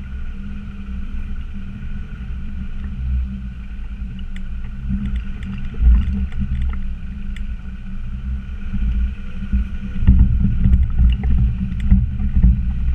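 Land Rover Discovery Td5's five-cylinder turbodiesel engine running under load off road, a continuous low rumble with scattered knocks and rattles. It gets louder from about ten seconds in.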